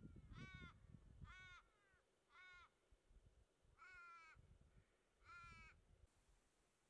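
A crow cawing: five short, arched caws spaced a second or so apart, faint. A low rumble underlies the first second and a half.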